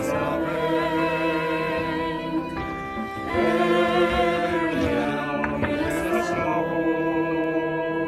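Mixed choir of men's and women's voices singing a slow song in Esperanto, in long held notes with vibrato. The chord changes a little over three seconds in.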